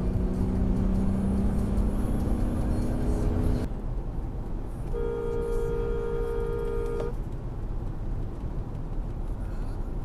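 Steady road and engine noise inside a moving car, which drops abruptly about three and a half seconds in. About five seconds in, a two-tone car horn is held for about two seconds.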